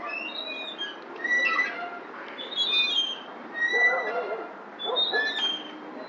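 Metal playground glider swing squeaking at its pivots, a cluster of high squeals about every second and a quarter as it swings back and forth.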